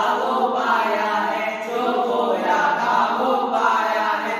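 A group of boys' voices singing together in chorus.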